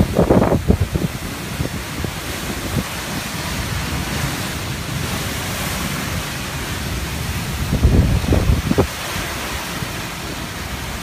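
Heavy wind-driven rain in a severe thunderstorm: a steady rush of rain and wind, with low rumbling bursts near the start and again about eight seconds in as gusts hit.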